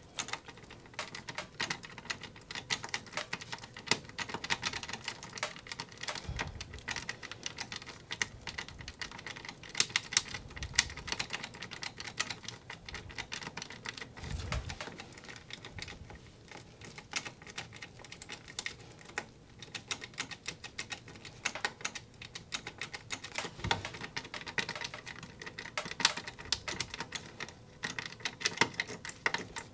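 Rapid, irregular clicking and rattling of a safe's tubular lock being picked with a Bic marker worked into the keyway, with a few dull low thuds along the way.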